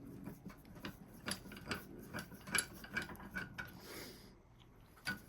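Reed No. 103 1/2 R bench vise being cranked along its screw: a run of irregular metal clicks and ticks from the screw and handle as the jaw travels, stopping a little before the end after a brief soft rub.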